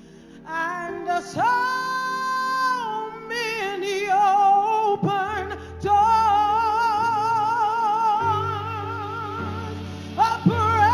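A female gospel singer holds long, wordless notes. She swoops up into a held note near the start, then sings with a wide vibrato. Sustained low accompaniment chords come in about halfway through.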